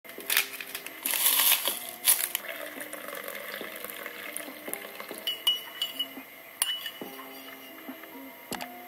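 A coffee sachet rustling as it is emptied into a porcelain cup, then water from a water-dispenser tap running into the cup. After that a metal spoon stirs the coffee, clinking sharply against the porcelain cup half a dozen times.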